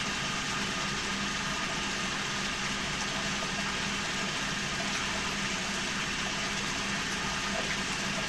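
A steady low hum under an even hiss, with no change in level.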